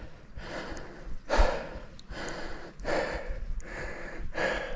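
Hard, rhythmic breathing of a cyclist labouring up a climb, a noisy breath about once a second.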